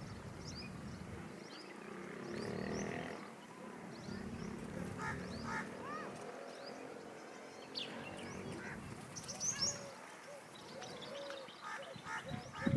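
Birds calling and chirping in many short, bright notes over a low background murmur.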